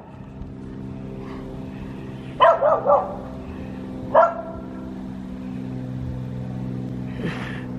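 A dog barks three times in quick succession about two and a half seconds in, then once more about a second later, over the steady hum of a small tractor's engine running, which grows a little louder in the second half.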